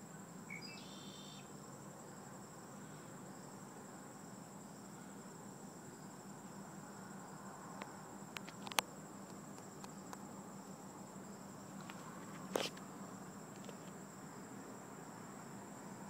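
Steady high-pitched insect trill, with a low hum beneath it, a brief chirp near the start and two sharp clicks in the second half.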